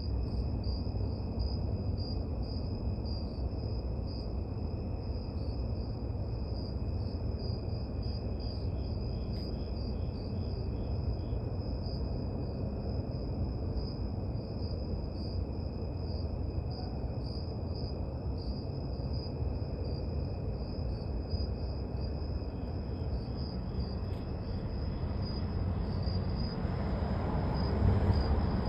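Insects trilling without pause: a steady high-pitched trill with a fainter, lower one beneath it, over a low rumbling background noise that grows a little louder near the end.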